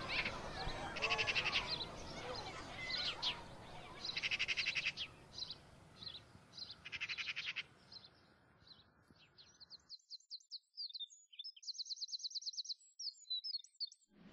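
Small songbirds singing: repeated rapid high trills about a second long, mixed with scattered chirps, over a low outdoor background. About two-thirds of the way through the low background drops out abruptly, leaving only the high chirps and one more trill.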